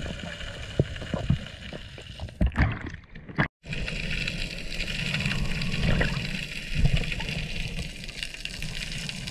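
Underwater sound picked up through an action camera's waterproof housing while freediving: a steady low rumble and gurgle of moving water with scattered small knocks. It drops out briefly about three and a half seconds in.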